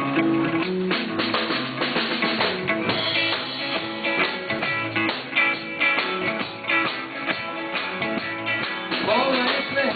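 Live band playing an instrumental passage: strummed guitar over a drum kit, with a steady beat and changing notes.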